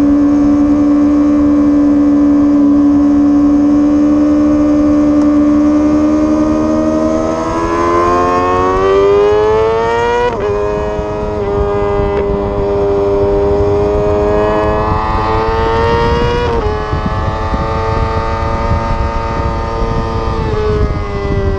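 Sportbike engine heard onboard at speed, with wind rush over the microphone. The note holds steady for several seconds, then the revs climb and drop sharply with an upshift about ten seconds in, climb again and drop with another gear change about two-thirds of the way through.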